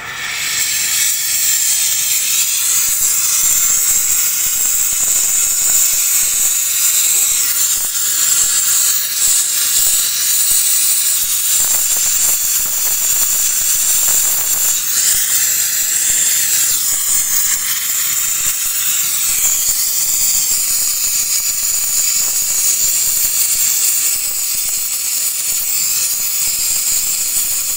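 Brazing torch flame hissing steadily while a refrigerator's refrigerant line joint is brazed; the hiss comes on suddenly.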